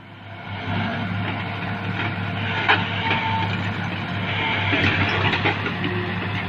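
Diesel engine of an excavator running steadily under load with mechanical clatter from the machine as it travels on its tracks, and one sharp click a little before the middle.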